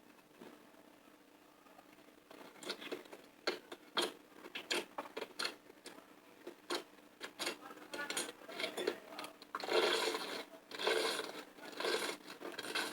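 Slime being squeezed and worked by hand, giving sticky clicks and crackly squishes. It is almost quiet for the first couple of seconds, then the clicks come thick and fast, with longer squishing bursts near the end.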